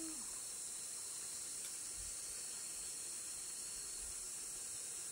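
Steady high-pitched hiss, even throughout, with a faint short falling call right at the start.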